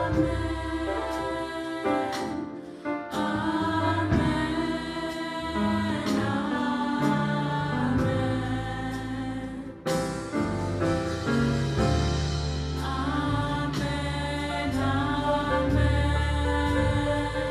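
A small group of women singing "Amen, amen, amen, amen" in harmony, over an instrumental accompaniment with sustained bass notes.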